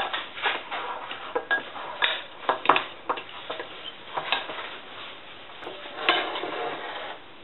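Metal spoon stirring and mashing a soft chopped mixture in a small glass bowl, clinking and scraping against the glass in irregular taps, with a longer scrape about six seconds in.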